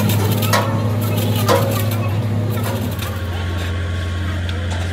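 A steady low machine hum with a few sharp knocks, typical of hammer blows on steel, about a second apart in the first half.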